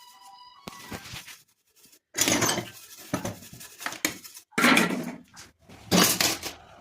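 Hard clattering and scraping of ceramic tiles and tiling tools. A quiet scrape comes about a second in, then a run of loud, short scrapes and knocks, roughly one a second, through the second half.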